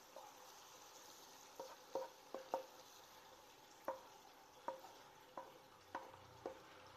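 A spatula knocking against a pan about ten times, each knock with a short ring, as a stir-fry is scraped out, over a faint steady hiss.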